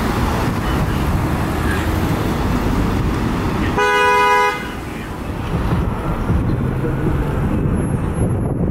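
Steady rumble of traffic and engines, broken about four seconds in by a single short vehicle horn blast lasting under a second.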